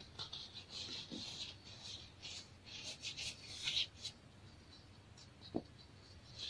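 Chunks of pressed baking soda crumbled and rubbed between the fingers: fine crunching and powder trickling, busiest in the first four seconds and sparser after. One soft thump about five and a half seconds in.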